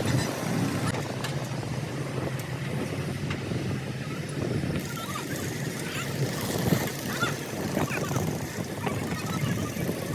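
A large engine running steadily with a low rumble, and a brief louder knock a little after the middle.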